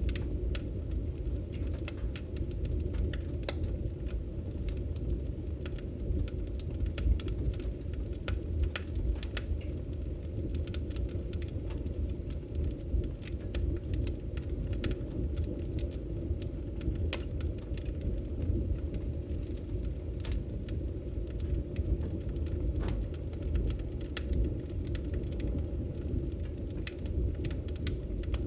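Wood fire burning in a fireplace: a steady low rumble of flames with scattered, irregular sharp crackles and pops.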